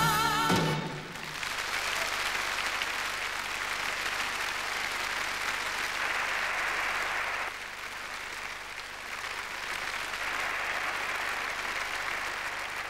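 A singer's final held note with orchestra cuts off about half a second in, followed by a large audience applauding steadily; the applause drops slightly in level a little past halfway.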